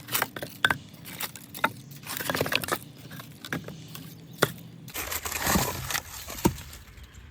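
Decayed water oak being broken apart: a string of sharp cracks and snaps, with two spells of crunching and crumbling wood.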